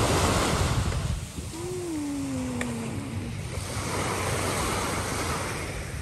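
Small waves breaking and washing up a sandy beach, with wind rumbling on the microphone. A short tone slides downward about two seconds in.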